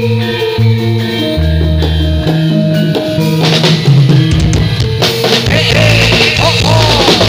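Live Javanese Buto Gedruk dance music: held low keyboard-like notes, then drums come in about three and a half seconds in and play on densely, with a few gliding tones near the end.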